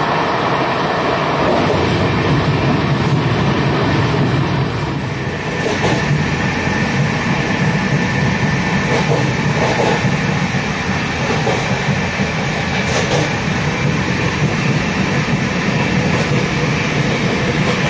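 Passenger train running, heard from on board one of its Tejas coaches: a steady noise of wheels on rails, with a few faint clicks.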